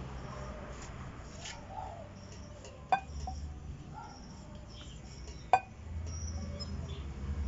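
A metal spoon clinking sharply against glassware twice, about three seconds in and again two and a half seconds later, while boiled cassava is scooped and mashed for nilupak.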